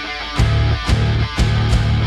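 Background rock music with guitar and a heavy, rhythmic beat of loud bass-and-drum hits about every half second.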